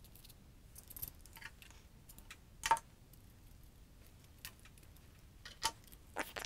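Scattered small clicks and taps of a screw, nut and small tool handled against 3D-printed plastic parts during hand assembly. The sharpest tap comes about two and a half seconds in, and a few lighter ones come near the end.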